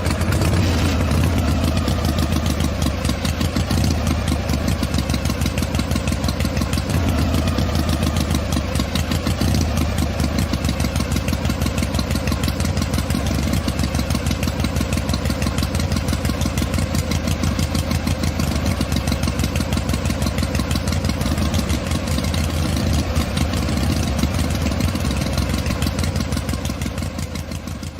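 Engine idling steadily with a rapid, even chugging, fading out near the end.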